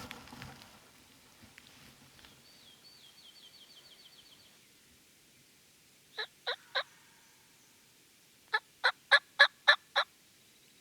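Wild turkey hen-style yelping: a run of three short yelps, then a louder, even run of seven. Earlier a songbird gives a fast, high trill.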